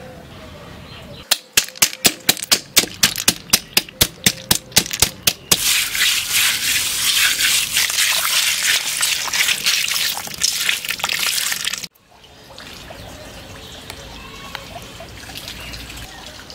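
Boiled freshwater snail shells cracking under a hand pressed on a wet stone surface: a run of sharp cracks about four a second, then a dense wet crunching of shells and water that cuts off suddenly.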